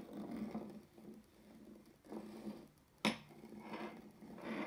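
Quiet handling of a small metal engine valve and tool on a stone countertop, with one sharp metallic click about three seconds in as a part touches the stone.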